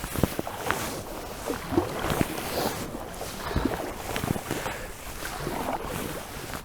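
Kayak paddling: paddle blades dipping and splashing in the river water, with a scatter of small irregular splashes and knocks.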